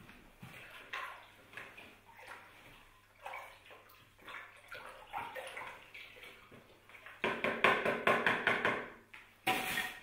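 Water sloshing and splashing in a plastic bucket as hands and a container are dipped in, with a louder stretch of splashing for about two seconds near the end.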